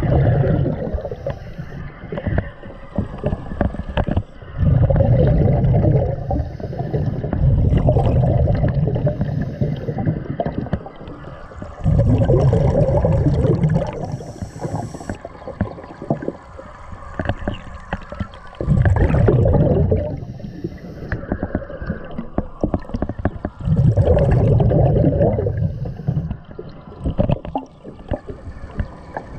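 Underwater sound as heard in a GoPro housing: a steady bed of muffled water noise, broken every four to six seconds by a loud rumbling, gurgling burst one to two seconds long, like a diver's exhaled bubbles rushing past.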